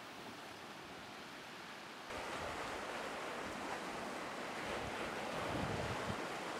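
Sea surf washing over shoreline rocks, a steady hiss. About two seconds in it gives way abruptly to a louder, uneven rush of wind buffeting the microphone.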